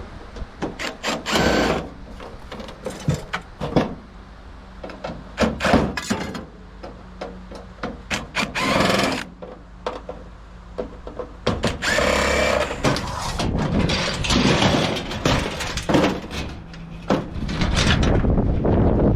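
Power drill running in several short bursts, taking apart a scrap microwave oven, among repeated knocks and clanks of metal being handled.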